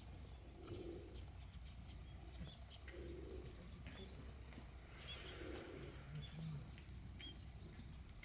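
A dove cooing faintly, three low calls about two and a half seconds apart, with small birds chirping now and then.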